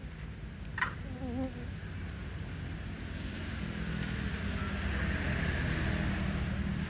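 Insects buzzing steadily, growing louder after about three seconds, with a brief high squeak about a second in.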